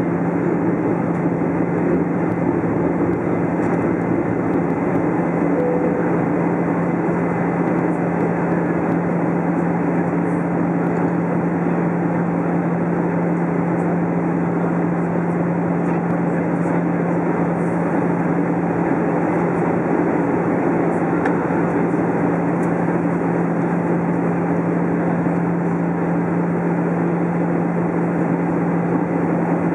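Steady cabin noise inside an Airbus A320 airliner descending on approach: an even rush of engine and airflow noise with a constant low hum underneath.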